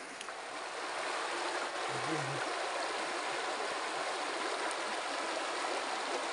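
Steady rushing of a flowing hill stream.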